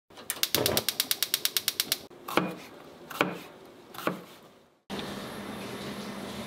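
Logo sound effect: a fast mechanical ticking of about ten clicks a second for under two seconds, then three rising whooshes about a second apart, each peaking in a short bright hit. Near the end it gives way to a steady low hum.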